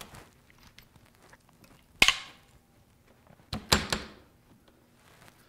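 Large hand cable crimper crimping a copper ring lug onto 4-gauge welding cable: one sharp snap about two seconds in, then a short cluster of clacks a second and a half later.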